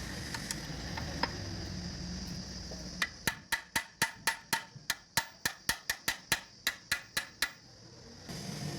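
Hammer striking steel in a quick run of about twenty ringing taps, four to five a second, driving the low-high shift rod into the tractor gearbox housing. A steady low hum comes before the taps.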